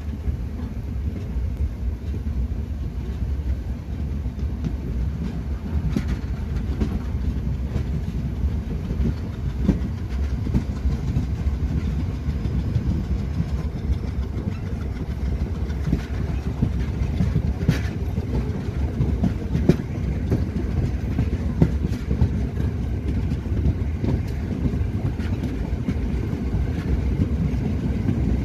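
Passenger train running along the track with a steady low rumble and an occasional sharp clack from the wheels and rails.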